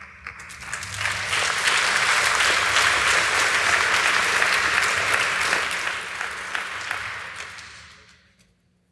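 Audience applauding: the clapping builds over the first second, holds steady, then dies away about eight seconds in.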